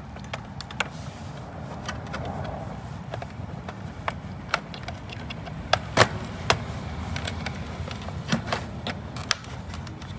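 Scattered sharp clicks and knocks of hands and tools working the cover off a sliding gate motor, over a steady low rumble.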